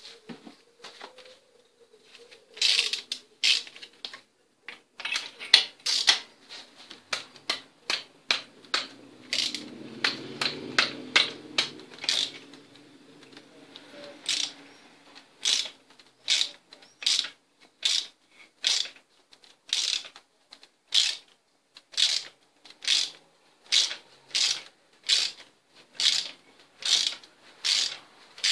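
Socket ratchet clicking as a spark plug is worked in the cylinder head, the clicks irregular at first, then coming in even strokes of about one and a half a second.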